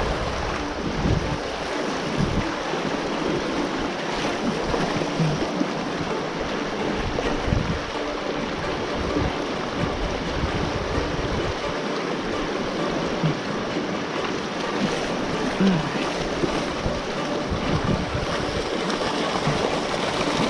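Fast-running creek water, high and turbulent, making a steady rushing noise, with wind gusting on the microphone.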